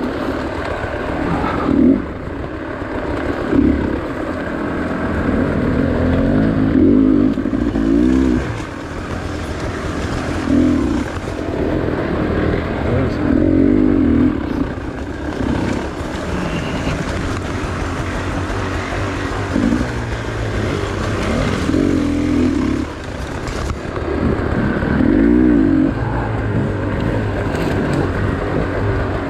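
Dirt bike engine heard from on board, rising and falling in pitch every second or two as the throttle is opened and closed at low speed.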